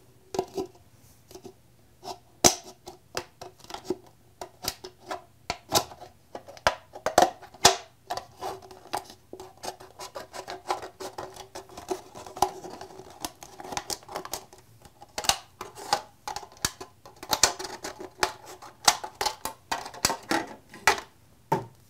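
Scissors snipping through a thin plastic cup: dozens of sharp, irregular snips, often in quick runs of several a second.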